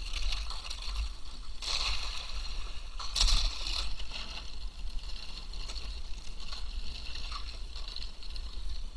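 Kayak paddle and hull pushing through thin sheets of lake ice, about 3 to 4 mm thick, giving a steady scraping noise with two louder bursts about two and three seconds in.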